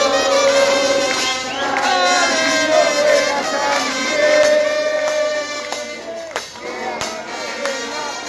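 Crowd of football fans singing a chant in unison, with long held notes and percussion strokes keeping the beat.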